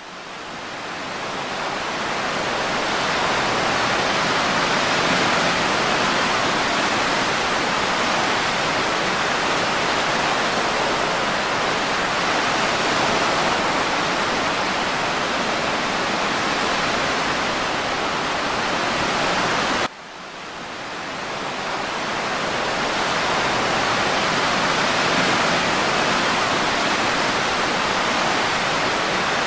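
A steady, even rushing hiss from an ambient ocean-waves-and-breeze sound track, with no rise and fall of separate waves. It fades in over the first few seconds, drops out abruptly about 20 seconds in, and fades back up, the mark of a looped track restarting.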